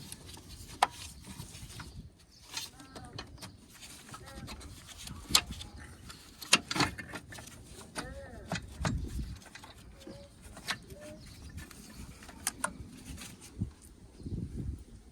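Scattered sharp metallic clicks and knocks from tools and battery hardware in a car's engine bay. Short animal calls sound in the background.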